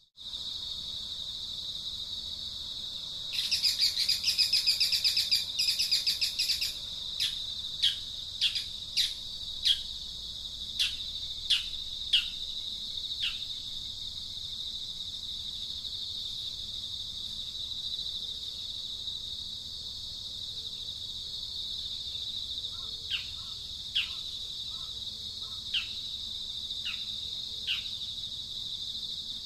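Insects droning steadily with a high, even whine, while a bird calls over it: first a loud, rapid rattling burst lasting about three seconds, then a string of short, falling whistled notes, one or two a second, which stop for a while and return near the end.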